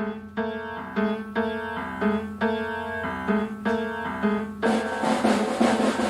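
Background music: a melody of short pitched notes, with drums and a cymbal-like hiss coming in about two-thirds of the way through.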